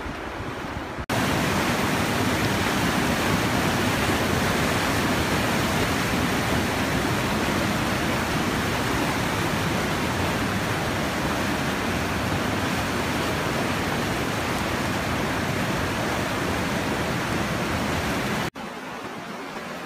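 Steady, loud rush of a fast, turbulent mountain river heard close at the water's edge, starting abruptly about a second in and cutting off suddenly near the end.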